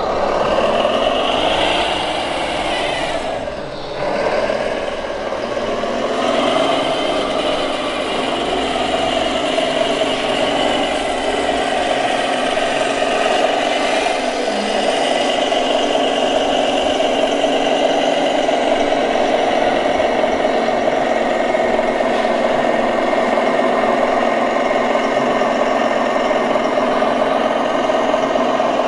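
ScaleART MAN 6x6 RC dump truck running as it climbs and crosses sand slopes: a steady drone that dips briefly about four seconds in and shifts in pitch a couple of seconds later.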